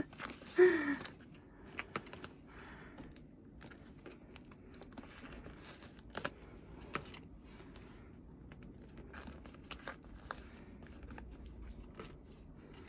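Clear plastic binder pocket pages rustling and crinkling as photocards are slid into the pockets by hand, with scattered light clicks and taps. A brief vocal sound just after the start is the loudest moment.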